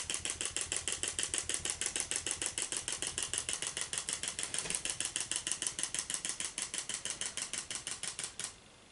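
Clockwork wind-up toy chick ticking as it walks, an even rapid clicking of about eight ticks a second that stops near the end as the spring runs down.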